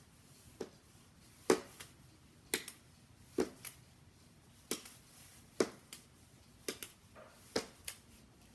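Small fabric game pillows tossed up, caught in the hand and dropped onto a hardwood floor: about a dozen short taps, roughly one a second, some in quick pairs.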